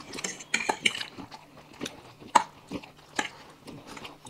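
Several people eating fast: irregular clinks of cutlery against plates mixed with chewing and other mouth sounds.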